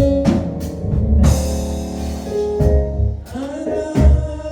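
Church band music with a drum kit and held chords. A voice starts singing about three seconds in.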